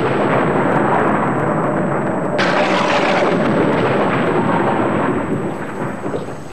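Thunder sound effect: a long rumble of thunder, a fresh sharp clap about two and a half seconds in, then a slow dying away near the end.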